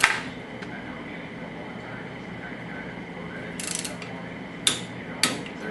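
Torque wrench and socket on a 2001 Yamaha R6 cylinder head bolt, tightening it toward 37 ft-lb: a sharp metal click at the start, a short ratcheting rattle about three and a half seconds in, then two more sharp clicks about half a second apart near the end.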